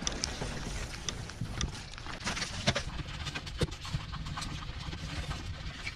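Footsteps crunching along a forest trail, an uneven run of steps with a few sharper clicks and knocks.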